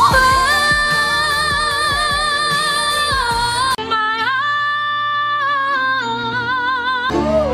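A female singer holds a high sustained note, D5, over accompaniment, ending with vibrato. At about four seconds it cuts to another female singer holding a slightly lower note, C5, which also ends with vibrato.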